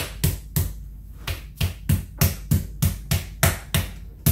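Metal meat mallet pounding a chicken breast flat through plastic wrap on a countertop: a quick run of repeated blows, about three a second, with a short pause about a second in.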